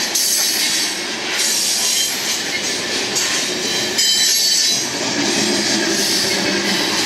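Steel wheels of loaded coal cars on a freight train rolling past on the rails, with a steady rumbling rattle and a thin, high-pitched wheel squeal throughout.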